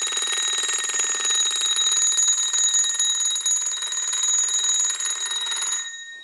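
Ramsey Coote bedwetting alarm's electric bell ringing continuously, the signal that moisture has reached its sensor pad. It cuts off near the end as the alarm is switched off.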